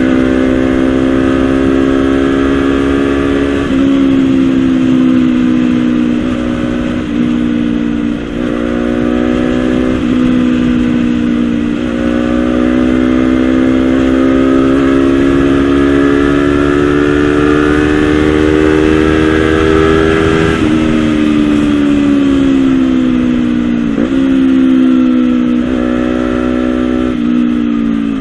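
Honda CBR250RR's two-cylinder engine running through a Villan SV1 slip-on exhaust, its engine speed held and shifted: the pitch steps up and down several times, climbs slowly for several seconds, then drops sharply about twenty seconds in.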